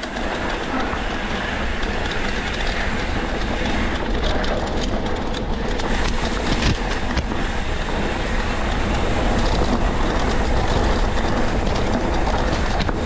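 Trail motorcycle riding down a rough, steep track: a steady rumble and rattle of wheels and frame over stones. A cluster of sharp knocks comes about four to seven seconds in.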